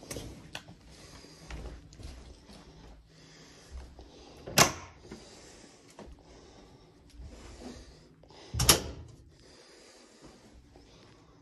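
Two sharp knocks or latch clicks about four seconds apart, the second as the hinged door of a Stiltz Duo Vista home lift is pulled open. Faint shuffling and handling noise fills the gaps.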